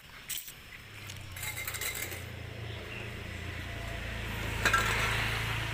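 Light metallic clinks and rattles from a corrugated galvanized steel sheet being handled, in clusters about a second and a half in and again near the end. A steady low motor hum builds up behind them.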